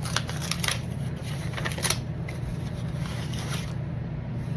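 Paper and packaging rustling and tearing as a mailing envelope is opened, with several short crisp rips in the first two seconds, then lighter rustling that stops near the end.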